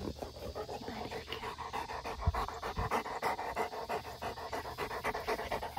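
Cane Corso panting quickly and rhythmically right at the microphone, the breathing of a warm dog in need of water.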